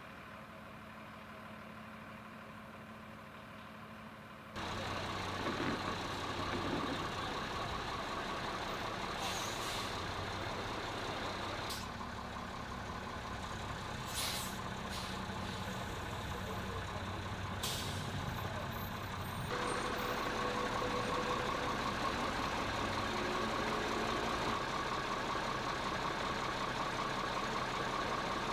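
R-11 fuel truck's diesel engine running, stepping up sharply in loudness about four seconds in. A few short sharp hisses of air come through in the middle, and the engine note turns louder and brighter in the last third.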